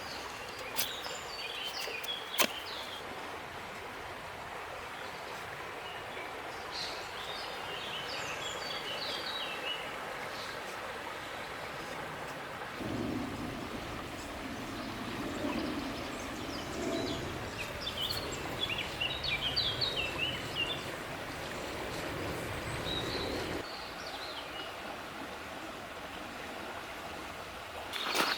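A river flowing with a steady rushing sound, and small birds chirping in short bursts now and then. About halfway through, a deeper rushing joins for roughly ten seconds and then drops away.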